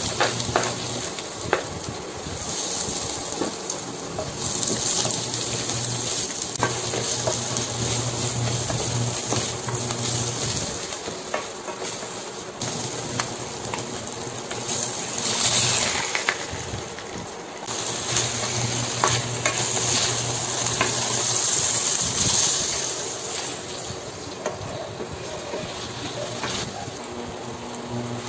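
Garlic, onion and ginger sizzling in hot oil in a stainless steel pot, stirred with a wooden spatula that clicks and scrapes against the metal. The sizzle swells again about halfway through, as raw chicken pieces go into the oil and are stirred.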